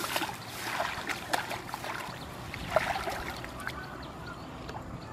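Shallow muddy water splashing and sloshing as a person wades in and reaches into it by hand, with grass rustling; the splashes come irregularly, loudest about three seconds in, then settle to quiet.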